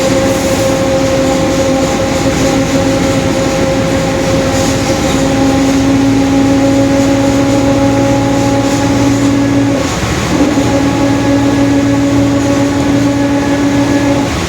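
Mercedes-Benz OF-1721 bus running at highway speed, heard from inside the cabin: the drivetrain noise is dominated by a steady whine from the growling differential. The whine grows stronger about five seconds in, breaks off briefly about ten seconds in and then picks up again.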